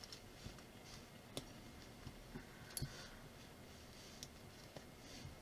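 Faint, scattered clicks of small Playtive plastic building bricks being handled and pressed together by hand, at irregular intervals over a quiet room.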